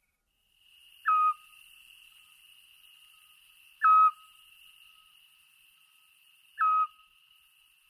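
Eurasian scops owl calling: three short, clear whistled 'tyu' notes, evenly spaced about three seconds apart, over a faint steady high-pitched hum.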